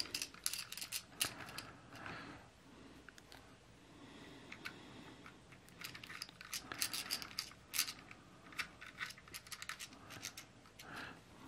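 Faint scattered ticks and light scrapes as a small crosshead screwdriver turns screws into a stacked acrylic case.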